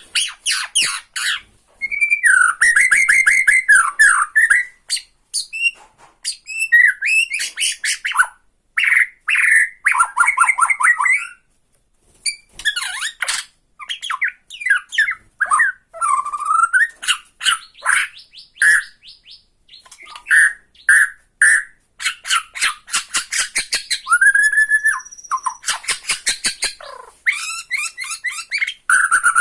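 Bornean white-rumped shama (murai batu Borneo) calling in bursts of rapid rattling ticks, the 'ketrekan' rattle, mixed with short whistled notes that slide up and down, with brief pauses between phrases.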